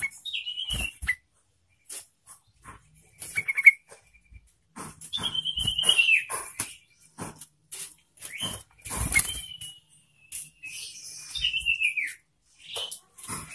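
Yellow-vented bulbul (trucukan) singing about five short phrases of whistled notes that slur downward, one a quick stuttering trill. Many sharp clicks and knocks fall in between.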